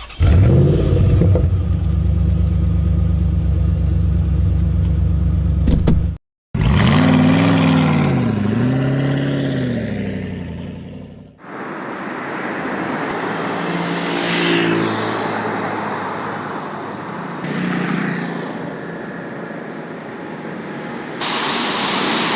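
Car engine sound effects in edited segments: a steady engine hum, then, after a short cut, revving that rises and falls twice, then a rushing noise with a few falling tones.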